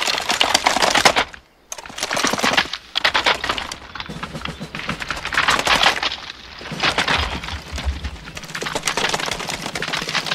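Dozens of wooden-stocked rifles with fixed bayonets being slapped, spun and caught by a drill platoon nearly in unison, making rapid rattling runs of clicks and clacks. The runs break off for brief pauses between drill movements.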